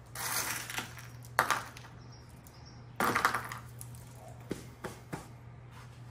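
Kiln shelves being handled on cardboard by gloved hands: a few short rustling scrapes, then three light knocks in quick succession past the middle, over a steady low hum.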